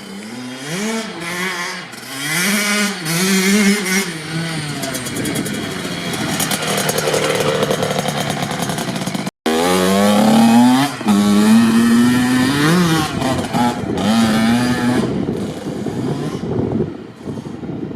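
Kawasaki KX65 single-cylinder two-stroke dirt bike engine being revved and ridden, its pitch climbing and falling repeatedly with the throttle. The sound cuts out completely for a split second about nine seconds in, then the revving goes on.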